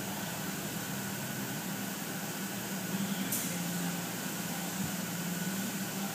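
Electric box fan running with a steady hum and hiss, and a single short click about three seconds in.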